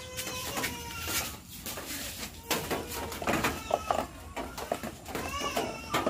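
Animal calls in the background, pitched and arching, once in the first second and again about five seconds in. Under them, short clicks and knocks of the plastic headlight cowling being handled and fitted onto the scooter.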